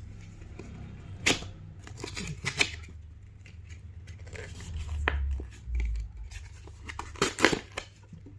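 Watch packaging being handled and opened by hand: a scattering of sharp clicks and snips with tearing and rustling, and a couple of dull bumps about five and six seconds in.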